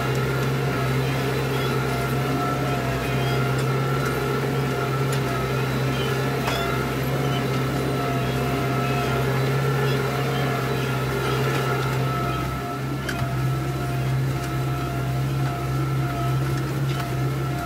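Tractor engine running steadily under load while pulling a Cosmo Continuo compact disc harrow through the soil. It is a continuous low drone with a steady higher whine over it, easing slightly about twelve seconds in.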